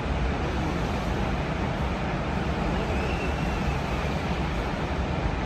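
Steady rushing roar of the Rhine Falls, a large river waterfall, with an even level throughout.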